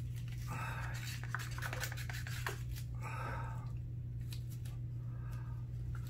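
Small plastic squeeze bottles of acrylic paint being squeezed over a canvas: short spluttering squirts of paint and air, with scratchy rubbing and clicks from gloved hands handling the bottles, over a steady low hum.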